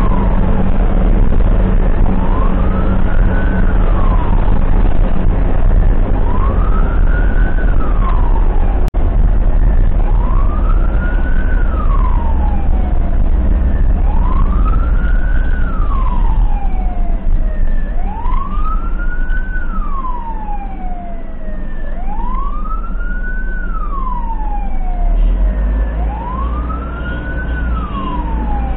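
Ambulance's electronic siren on a slow wail, rising and falling about every four seconds, heard from inside the vehicle over the low rumble of its engine and tyres.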